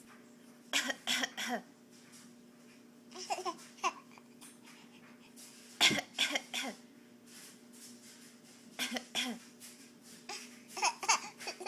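A young child coughing in five short rounds of two to four coughs each, coming every two to three seconds, over a faint steady hum.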